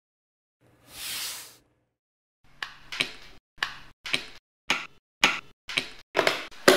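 A brief soft rushing noise, then a quickening run of about a dozen sharp clicks and knocks: laser-cut board panels of a DIY puzzle speaker kit being slotted and snapped together, the last click the loudest.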